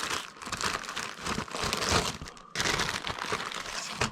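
Packaging crinkling and rustling as items are unwrapped and handled by hand, with a brief lull about two and a half seconds in.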